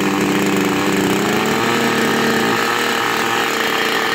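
Chinese-made Promo two-stroke gasoline chainsaw engine running steadily off load, just started after sitting unused since the autumn. Its pitch rises slightly about a second in, then holds.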